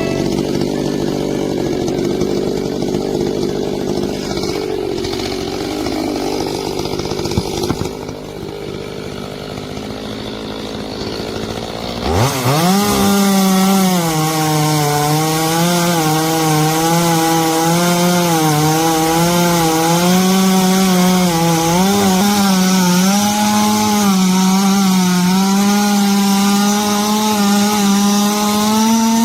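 Two-stroke chainsaw: it runs rough and noisy at first, then revs up sharply about twelve seconds in and holds high revs steadily, wavering slightly, until it cuts off just before the end.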